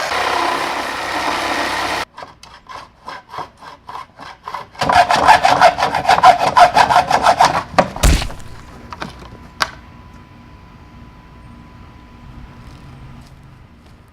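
A corded reciprocating saw (Sawzall) with a wood blade cuts through pallet nails. It runs at a steady full speed, stops about two seconds in, then goes in separate even strokes, quiet at first and loud for a few seconds. A heavy thump comes about eight seconds in, then a couple of sharp clicks, and the last few seconds are quiet.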